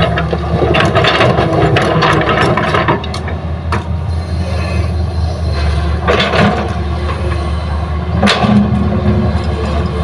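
Excavator's diesel engine running steadily under load, with repeated bursts of scraping and clattering as the bucket digs hard soil and loads it into a dump truck, the loudest burst near the end.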